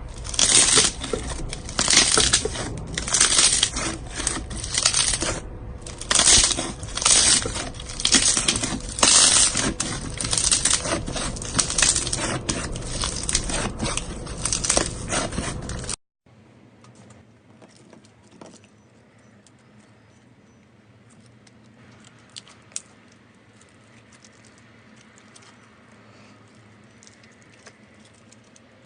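Slime being squeezed and stretched by hand, giving crackling, crinkling pops in repeated loud bursts. About sixteen seconds in it cuts off sharply to a much quieter stretch of faint scattered clicks and pops.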